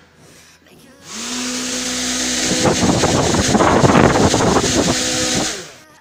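A 775 DC motor driving a homemade fan propeller: it spins up quickly about a second in with a short rising whine, then runs with a loud rush of air and motor noise, and cuts off just before the end. It runs without vibration.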